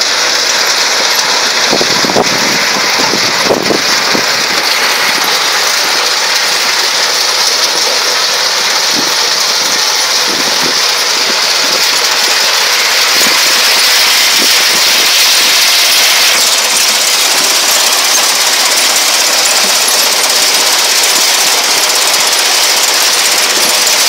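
Tractor-drawn potato harvester at work: a steady, loud mechanical noise from the digger and sieving chain conveyor together with the tractor engine, with a few knocks in the first few seconds.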